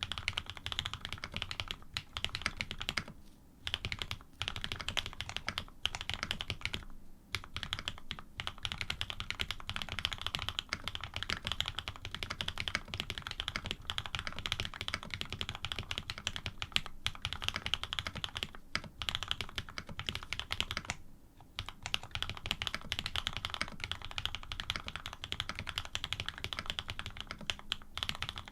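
Fast continuous typing on an AR87 mechanical keyboard with PBT keycaps and an aluminium plate, its switches Cream stems in Cherry housings lubed with Krytox 105. Rapid key strokes with a few short pauses.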